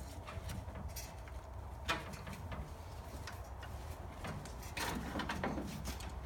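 Hands working a rubber upper radiator hose back onto the thermostat housing neck of a small-block Chevy 350: scattered clicks and rubbing, with a sharper knock about two seconds in and a longer stretch of handling noise near the end.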